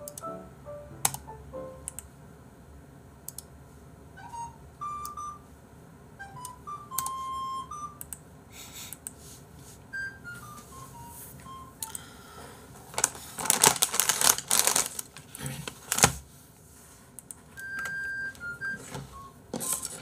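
Quiet background music of short, separate notes, with scattered sharp clicks. About two-thirds through comes a loud burst of rapid computer-keyboard typing lasting a few seconds.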